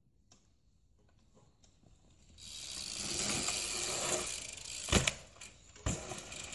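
Bicycle coasting down a dirt roll-in: a freewheel hub ticking, then a rush of tyre noise on dirt that swells about two seconds in, with two sharp knocks near the end.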